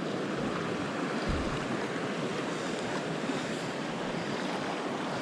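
Small mountain creek running, a steady rush of flowing water.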